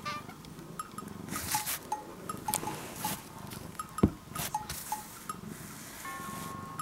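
Soft rustling as a hand rubs and pushes at a cat lying on a tatami mat, with light tinkling tones scattered throughout and one sharp knock about four seconds in. A short steady pitched tone sounds near the end.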